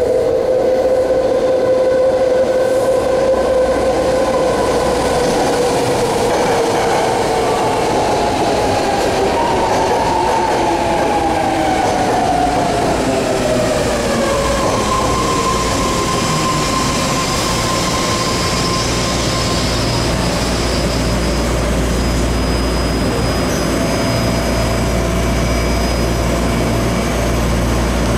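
BART train pulling into the platform and slowing to a stop: a loud whine falls steadily in pitch over about fifteen seconds, then a steadier low hum as the train stands.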